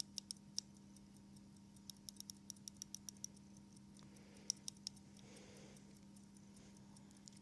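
Faint, quick ratcheting clicks from the winding crown of a vintage Swiss-made 15-jewel pocket watch as it is wound, coming in short runs. A low steady hum sits underneath.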